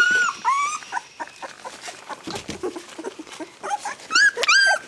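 Young puppies squealing and whining in short high-pitched cries, a few at the start and more near the end, with soft scuffling between.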